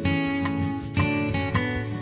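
Background music on acoustic guitar: a steady run of plucked and strummed notes.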